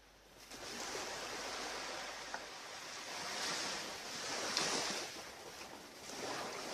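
Ocean surf washing onto a beach, a hiss of breaking water that swells and fades in several surges.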